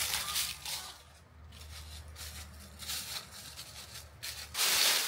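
Footsteps crunching through a thick layer of dry fallen leaves, an irregular series of steps that is quieter in the middle and grows louder near the end.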